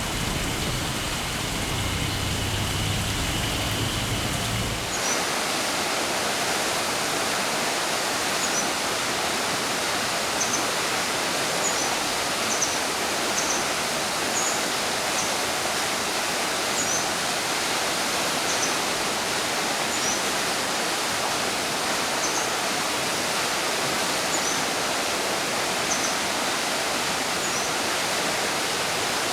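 Mountain stream rushing steadily while a small songbird repeats short, high chirps every second or two. About five seconds in, the water's low rumble drops away.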